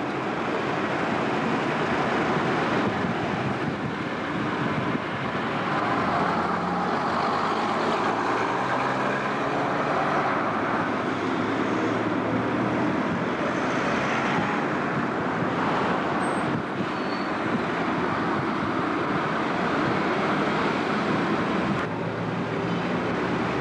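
Street traffic: cars and buses moving slowly past, with engines running and a steady engine hum in the middle stretch.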